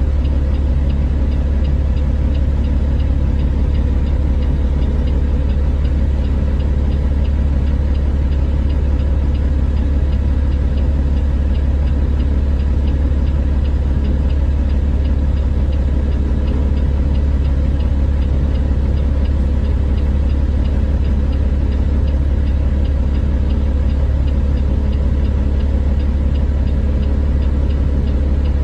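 Dump truck's diesel engine running steadily while its hydraulic hoist raises the dump box, with a constant deep low rumble.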